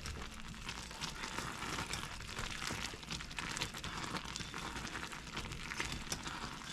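Butter toffee mixture of butter, sugar, corn syrup and water boiling hard in a pan, late in the cook at about 280°F. Its bubbles make a steady, dense crackling sizzle.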